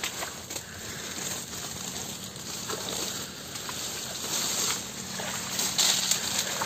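Leaves and branches rustling and dry twigs crackling as a person pushes through dense bushes on foot, with an irregular run of small snaps that gets louder toward the end.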